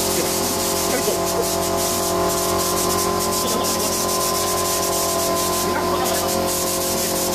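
Air spray gun spraying U-Pol Raptor bedliner: a steady hiss and spatter of air and coating, over a steady mechanical hum.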